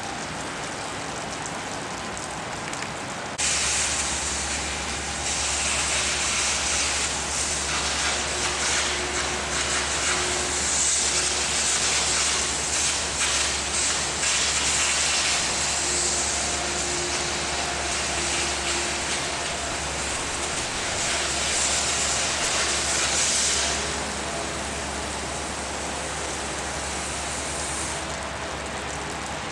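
A torch working steel: a loud, steady hiss that starts suddenly about three seconds in and stops about twenty-four seconds in. Under it runs a low, steady machine hum that starts with it and goes on a few seconds longer.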